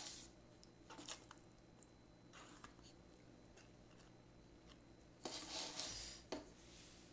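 Faint eating sounds: soft clicks of chopsticks against a cup-noodle bowl, and a short slurp of instant ramyeon noodles a little past the middle, followed by a single click.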